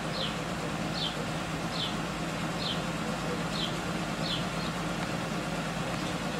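Early-1950s Pontiac sedan's engine idling with a steady low hum. Over it, a bird repeats a short, high, falling chirp about once a second.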